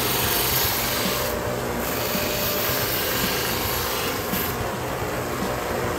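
Belt-and-disc combination sander running while the edge of a glued leather piece is pressed against the sanding belt, giving a steady hissing rasp. The rasp breaks off briefly about a second and a half in, then stops about four and a half seconds in while the motor keeps running.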